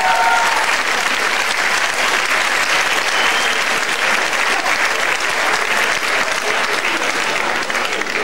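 Audience applauding steadily, with a few short whoops at the start.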